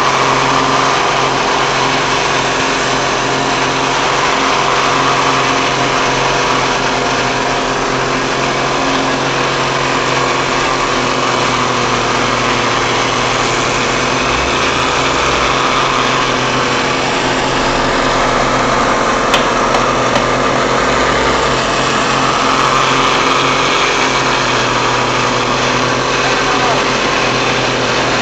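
Mortar plaster spray machine running steadily: a constant mechanical hum under the continuous hiss of compressed air blowing cement plaster out of the spray gun onto a wall.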